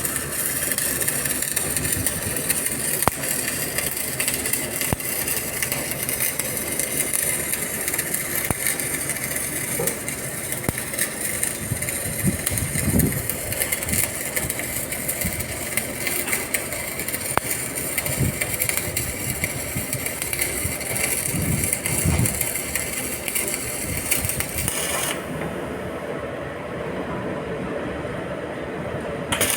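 Electric arc welding on a JCB 3DX backhoe bucket: a steady crackling hiss that stops about 25 seconds in and starts again near the end, over a steady engine running underneath.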